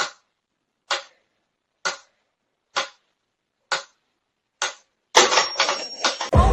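Sharp, evenly spaced ticks, like a clock, about one a second, six in all, with dead silence between them. About five seconds in, a dense burst of clattering noise takes over.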